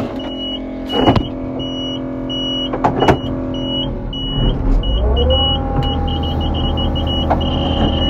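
Combine cab warning alarm beeping in short on-off pulses about twice a second, then flickering faster and holding on near the end, over the steady running engine, which rises in pitch about five seconds in. It is the coolant warning going off with the engine close to overheating. Two sharp knocks come about one and three seconds in.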